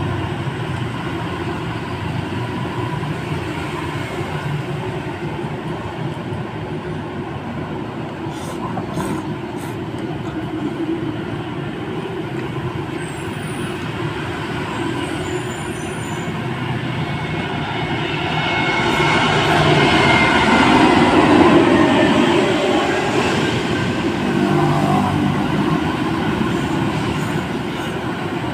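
Steady street traffic noise, with one vehicle passing close and growing louder for a few seconds past the middle before fading.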